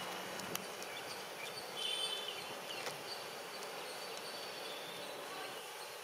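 Steady outdoor background noise at an athletics track, with a few faint clicks and brief high chirps about two seconds in.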